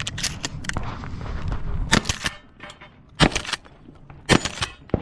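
Shotgun fired three times, about a second apart, with lighter clicks and knocks before the first shot.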